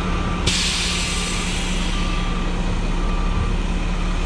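A heavy-duty tow truck's diesel engine running while its reverse alarm beeps about once a second. About half a second in, a sudden loud hiss of released air, as from the truck's air brakes, starts and slowly fades.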